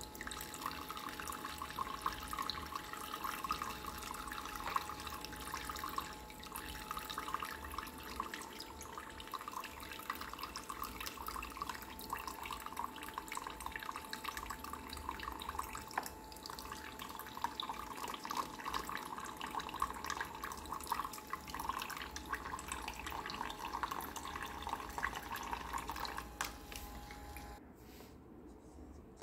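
Water from a toy sink's battery-powered pump faucet trickling and splashing into the plastic basin while a plastic toy brush and carrot are rinsed under it, with the small pump's steady hum underneath. Water and hum stop together shortly before the end, leaving a few light plastic clicks.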